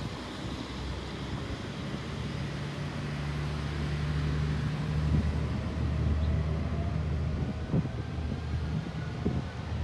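Diesel railcar's engine running with a low steady drone that grows louder a few seconds in. A faint rising whine joins near the end, with wind on the microphone.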